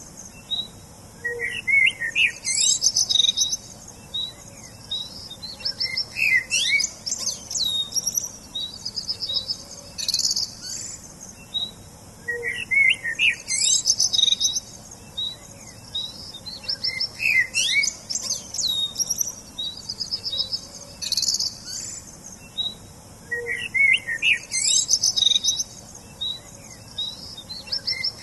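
Songbirds chirping and singing: fast high trills and sweeping whistles over lower twittering phrases. The same stretch of song repeats about every eleven seconds, as a loop.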